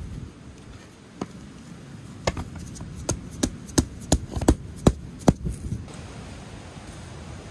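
Mallet hammering a tent stake into sand: one knock about a second in, then a quick run of about eight sharp knocks, two or three a second.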